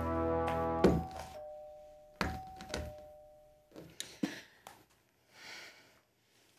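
Electronic two-tone doorbell ringing "ding-dong": a high note then a lower one, twice. It follows a knock, and there are a few light clicks later.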